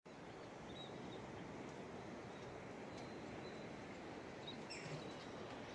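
Faint steady outdoor hiss with a few faint, high, short bird chirps, and a brief falling bird call near the end.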